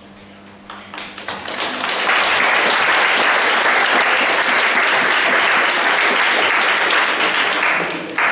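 Audience applauding: a few scattered claps about a second in that quickly build into steady, full applause, easing slightly near the end.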